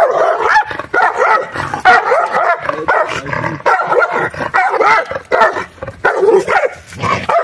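Mixed-breed guard dog barking and growling in quick, continuous bursts while biting and tugging at a stick held out to it.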